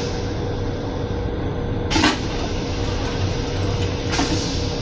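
Steady running rumble of a Metro-North M7 electric railcar heard from inside its restroom, with a thin steady hum. Two sharp knocks come through, one about two seconds in and a slightly softer one near the end.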